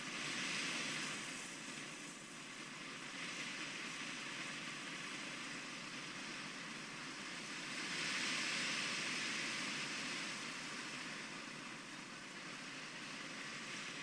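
Wind gusting through spruce trees and dry grass: a soft rushing noise that swells about half a second in and again around eight seconds in.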